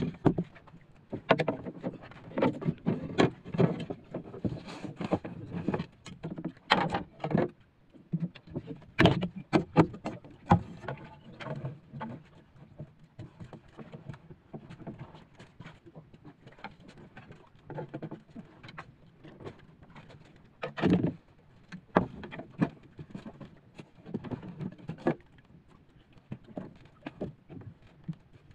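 Irregular wooden knocks and bumps aboard a small wooden outrigger canoe, with water against the hull. They come thick in the first dozen seconds, then sparser, with a few sharp ones about twenty seconds in.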